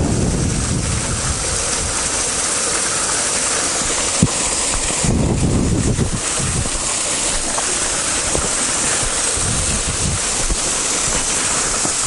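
Small waterfall pouring down a rock ledge onto stones, a steady rush of water; it is ripping pretty good. Wind rumbles on the microphone about five seconds in and again near the end.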